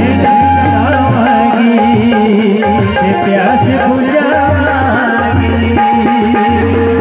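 Live folk song: a male singer sings into a microphone, accompanied by harmonium, electronic keyboard and a hand drum keeping a steady beat.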